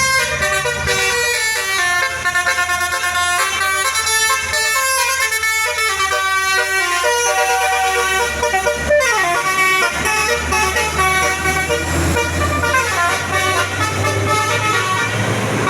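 Bus basuri 'telolet' horn, a set of multi-tone air horns playing a tune of quickly changing notes, with one note sliding down about nine seconds in. The bus's engine runs underneath, louder in the second half.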